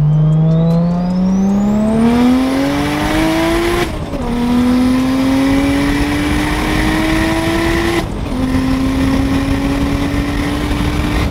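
BMW N54 straight-six, converted to a single turbo, pulling hard under acceleration, heard from inside the cabin: the engine note climbs steadily, drops sharply at an upshift about four seconds in, climbs again, and drops at a second upshift about eight seconds in before climbing once more. A thin high whistle rises over the first two seconds and then holds above the engine.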